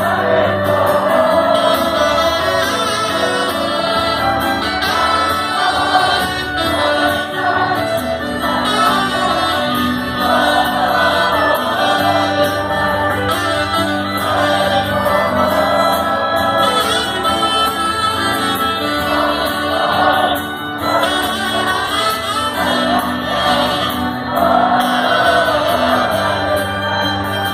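A live folk-rock band with accordion and guitar playing a song, with many voices singing together as the crowd joins in.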